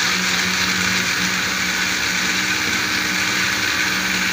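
Countertop blender motor running steadily, whirring as it blends mango pieces and milk in a glass jug.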